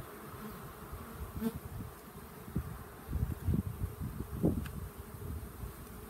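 Russian honey bees buzzing around an open nuc hive, the buzz rising and falling in loudness, with its loudest swells a little past the middle.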